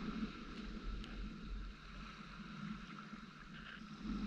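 Wind rumbling unevenly on the microphone, over a faint steady wash of small waves at the shoreline.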